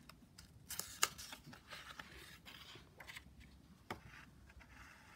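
Page of a picture book being turned by hand: paper rustling and sliding, with sharp crisp snaps of the page about a second in and again near four seconds.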